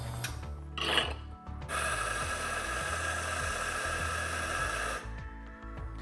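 Espresso grinder running for about three seconds, grinding a dose of coffee beans, with a short mechanical sound just before it starts.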